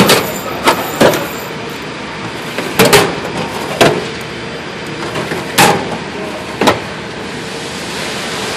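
Steel tool chest drawers being pulled open and pushed shut one after another. Their slides rattle and the drawers clack with each stroke, about seven times, over a steady background hiss.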